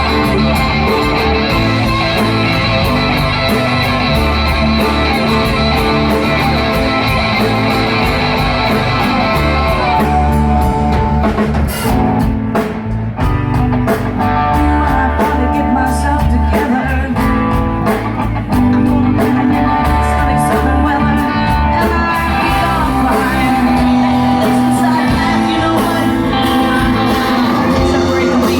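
Live rock band playing: electric guitar, bass and drums, with a singer. Sustained guitar chords hold for about the first ten seconds, then the playing turns choppier with drum hits.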